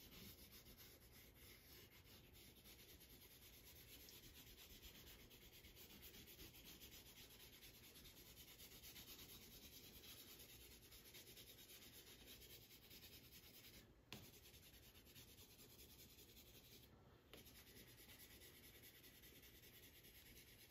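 Faint, steady scratching of a yellow coloured pencil shading back and forth on paper, with one light tap about two-thirds of the way through.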